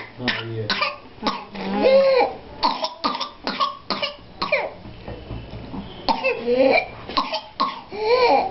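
A person coughing in rapid fits of many short coughs, with a few strained, pitched sounds between the fits: the paroxysmal cough of whooping cough (pertussis).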